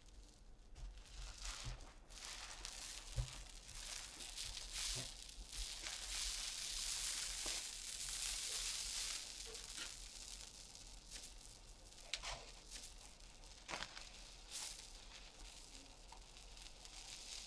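A soufflé omelette being lifted and folded over in a nonstick frying pan with a turner and a silicone spatula. A soft hiss and rustle of the airy egg swells in the middle, and there are a few light clicks of the utensils against the pan.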